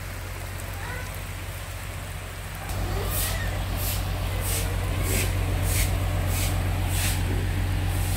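Heavy rain falling, with a steady low rumble underneath. About three seconds in it gets louder, and regular short hissing swishes come roughly every two-thirds of a second.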